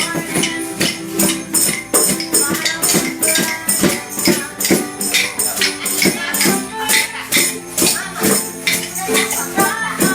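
A group of ukuleles strumming chords in a steady rhythm, with hand percussion shaking and jingling on the beat.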